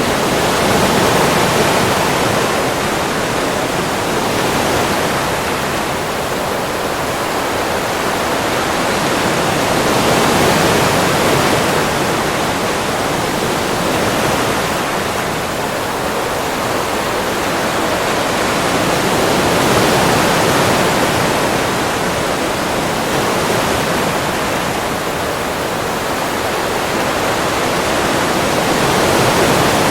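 Ocean surf on a beach: a continuous rushing wash that swells and eases every several seconds as waves break and run up the sand.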